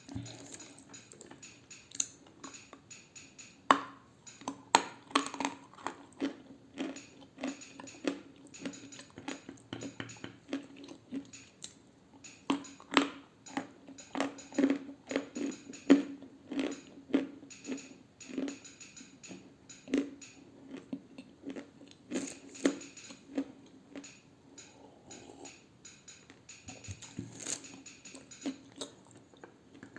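Close-miked chewing and crunching of edible clay: a long run of irregular, sharp crunches between softer chewing, busiest through the middle.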